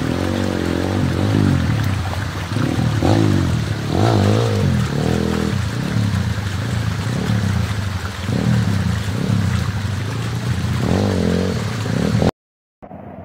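Enduro dirt bike engine revving up and down again and again as the bike climbs through a shallow rocky stream, over splashing, rushing water. The sound cuts off abruptly near the end and a quieter steady rush of water follows.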